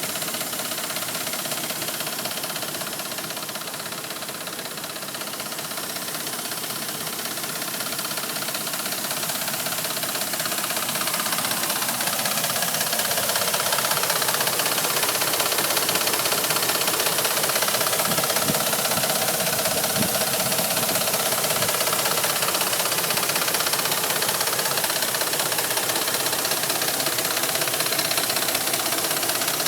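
Gasoline Dodge Ram 1500 engine running with a loud ticking that sounds like a diesel. It grows louder in the first half and then holds steady.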